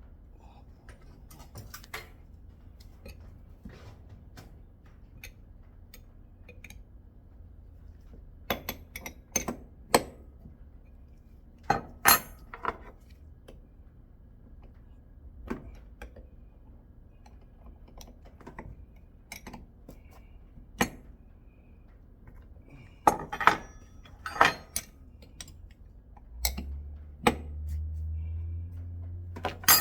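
Metal coilover parts and hand tools clinking and tapping while a QA1 rear coilover is assembled by hand, in scattered sharp clinks. A low hum joins for a few seconds near the end.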